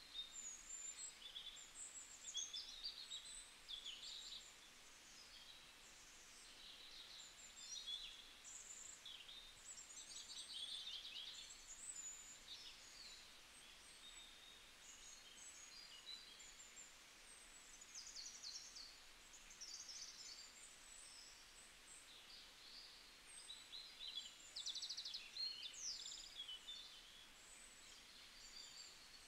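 Faint chirping of small birds, short high calls and trills coming in scattered clusters over a near-silent background.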